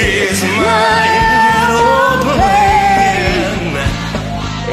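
Karaoke duet singing over a backing track, with long held notes sung with vibrato.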